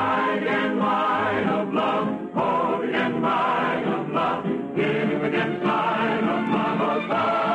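Choir singing a musical number in an old radio recording, with many voices held and shifting together.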